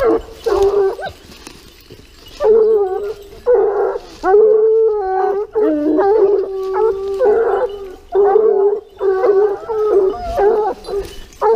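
Pack of Gascon Saintongeois hounds baying, long drawn-out calls one after another with short gaps, as they follow a wild boar's scent trail.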